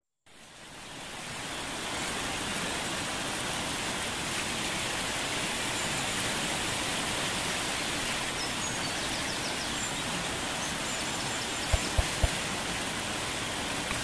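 Steady rush of a waterfall, fading in over the first two seconds. A few short knocks come close together about twelve seconds in.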